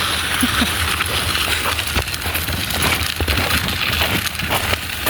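Footsteps on a trail while walking, irregular soft knocks and crunches, with wind buffeting the recording microphone as a steady low rumble.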